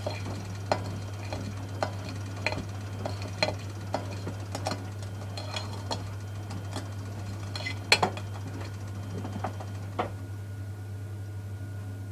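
Miele Softtronic W 435 front-loading washing machine in its wash phase, the drum turning and tumbling a pillow, giving irregular clicks and knocks over a steady low hum; the loudest knock comes about eight seconds in.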